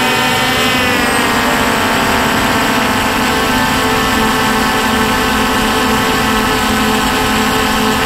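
Quadcopter drone's electric motors and propellers whining close to its on-board camera. The pitch drops about a second in, then holds steady.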